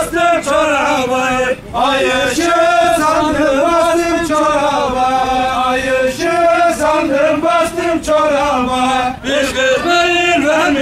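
A man singing a Sivas halay folk song in a wavering, ornamented voice, breaking off briefly for breath about one and a half seconds in and again near the end.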